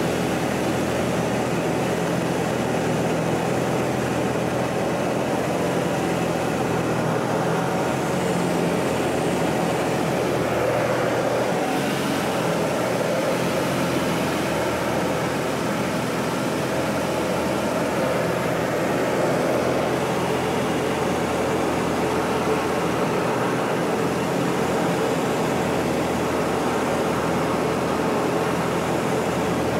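Pitts biplane's piston engine and propeller droning steadily in flight, heard from inside the cockpit over a constant rush of wind.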